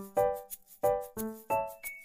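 Background music: a light melody of short pitched notes, each starting sharply and dying away quickly, about three notes a second.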